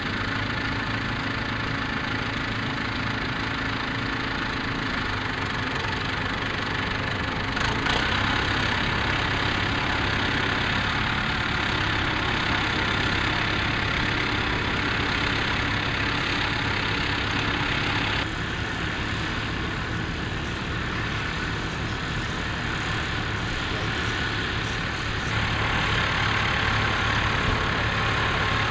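International 785 tractor's four-cylinder diesel engine running steadily, first at a standstill with the plough hitched, then pulling a reversible plough through stubble. The sound changes abruptly about 8, 18 and 25 seconds in.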